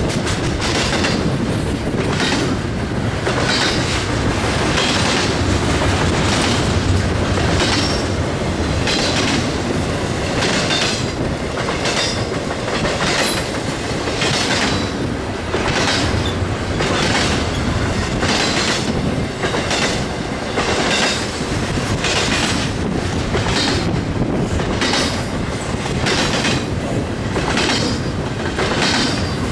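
BNSF freight train's cars rolling past at close range: a steady loud rumble with regular clickety-clack as the wheelsets strike the rail joints, repeating about once a second.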